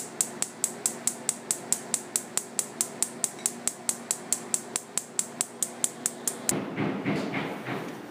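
A rapid, even series of sharp clicks, about five a second, that stops abruptly about six and a half seconds in, giving way to a rougher, noisier pulsing sound.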